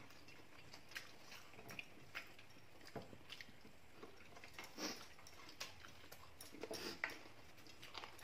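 Faint chewing and eating sounds of people eating chicken and rice by hand, with scattered small clicks and taps.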